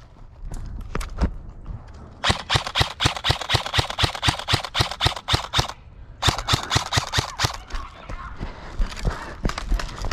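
Airsoft M16-style rifle firing in long rapid strings of shots, with a few single shots in the first second and another string near the end.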